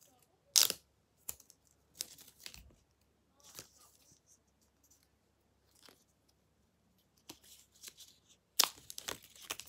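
Protective plastic film being peeled off a new AirPods charging case: short tearing, crinkling rasps in several bursts, the loudest about half a second in and a cluster near the end.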